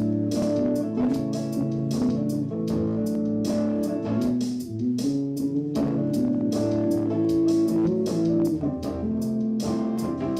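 Electric guitar and bass playing a groove with a steady beat.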